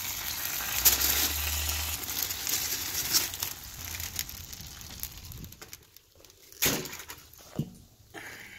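Aluminium foil crinkling and crumpling as a smoked steak is handled on it for wrapping, followed by a few sharp knocks near the end.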